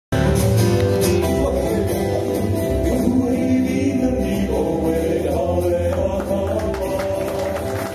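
Live Hawaiian song: several voices singing together over strummed acoustic guitar, ukulele and upright bass.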